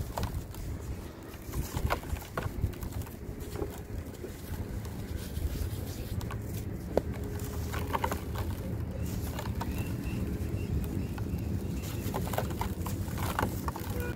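Dry sand crumbling and falling apart in clumps, with scattered soft crackles and knocks.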